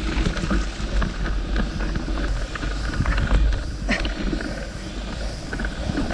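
Wind buffeting the microphone with a steady low rumble, over irregular clicks and rattles from a mountain bike moving over rough ground.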